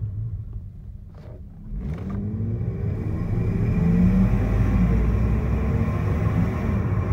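Exhaust of a first-generation Lexus IS300's 3.0-litre inline-six (2JZ-GE), running through an aftermarket Flowmaster resonator and the stock muffler, in gentle driving. It eases off briefly about a second in, then climbs in pitch and grows louder as the car accelerates, settling into a steady drone.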